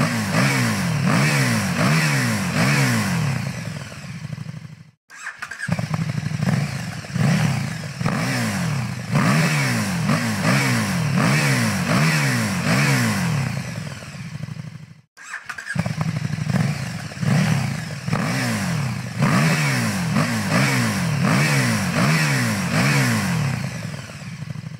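KTM 1290 Super Duke R's V-twin engine revved in quick throttle blips, about two a second, its pitch climbing and falling each time. The sound cuts out briefly twice, about five and fifteen seconds in.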